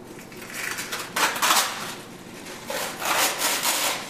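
Box of Press'n Seal plastic wrap being handled, the cardboard box and plastic sheet rustling in three bursts; the loudest is about a second and a half in and another runs near the end.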